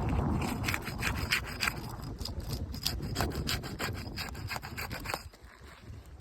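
A pry tool scraping and crackling under brittle 3-tab asphalt shingles as their seal strips are broken loose: rapid short cracking scrapes that thin out after about five seconds.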